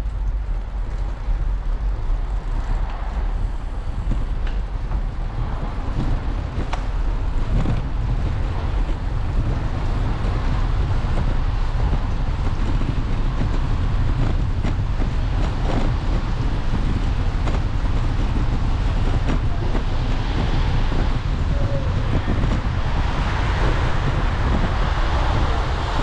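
Steady deep rumble of wind and riding noise on a bicycle-mounted action camera as the bike rolls slowly over wet brick paving, with scattered small knocks from the bricks. Road traffic hiss grows louder near the end.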